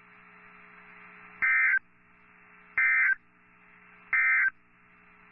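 Three short bursts of warbling digital data tones from a NOAA Weather Radio broadcast, about a second and a half apart over faint radio hiss: the EAS/SAME end-of-message code that signals the alert is over.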